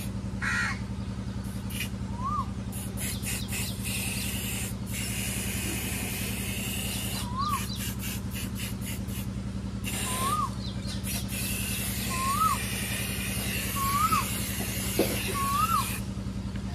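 Aerosol spray-paint can hissing in short bursts and longer sprays as red paint goes onto a tractor wheel rim. A bird repeats a short rising-then-falling call about every two seconds over a steady low hum.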